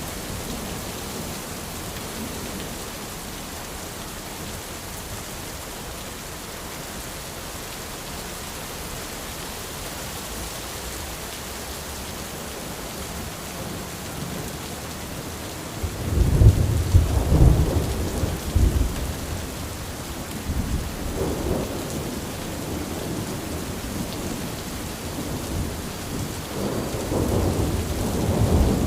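Steady rain falling on an umbrella, with thunder rumbling in suddenly a little over halfway through and rolling on and off to the end, loudest where it first breaks.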